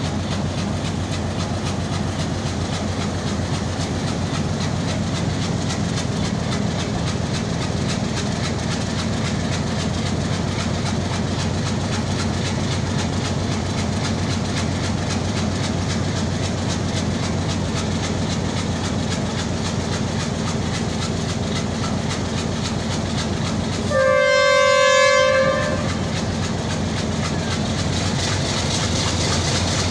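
Pakistan Railways PHA-20 diesel-electric locomotive running steadily as it pulls away slowly. Near the end it gives one horn blast of about a second and a half, several notes sounding together.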